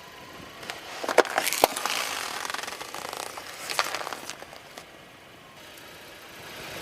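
Car tyre rolling over and crushing something brittle: a run of crackling with several sharp snaps in the first half, then quieter.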